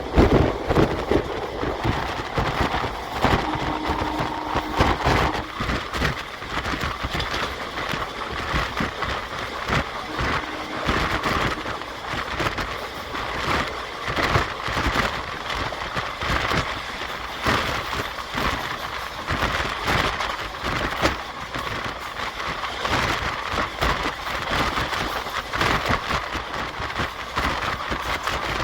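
Passenger train running along the track, heard from inside the coach by an open window: a steady rumble of wheels on rail with dense, irregular rattles and clicks.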